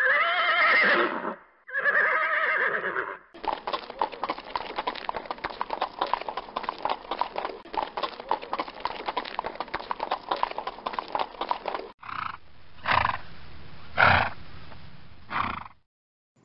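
Horse sound effect: two whinnies, then galloping hoofbeats for about eight seconds, then three short horse calls near the end.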